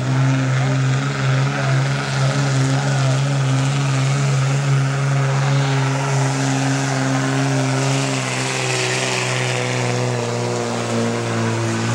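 Dodge Ram pickup's Cummins turbo-diesel engine held at steady high revs under heavy load as the truck drags a weight-transfer pulling sled. Its pitch dips slightly about eight seconds in.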